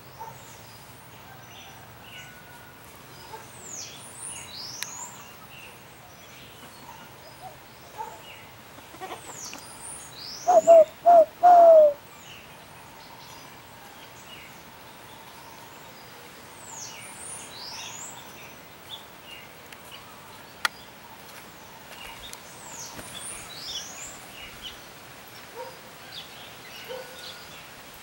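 A dove cooing: three loud coos in quick succession about ten seconds in, the last one longer and falling in pitch. Small birds chirp throughout with quick, high, falling notes.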